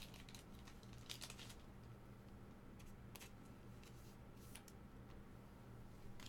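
Near silence: a low steady hum with a few faint rustles and clicks of trading cards being handled.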